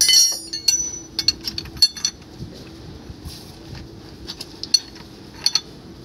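Steel ring spanner clanking and clinking against a three-jaw gear puller as it is fitted onto and turned on the puller's centre screw to draw the impeller off a Grundfos centrifugal pump. A loud ringing clank at the start, a quick run of clinks about a second in, then scattered single clinks.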